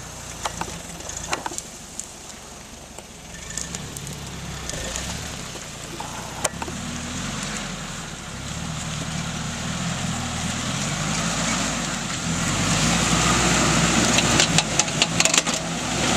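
Suzuki Vitara 4x4's engine working under load and revving up and down as it crawls over rough, muddy ground, getting louder as it comes closer. A few sharp cracks sound early, and a rapid run of them comes near the end as the front wheels turn under load: the front CV joints cracking.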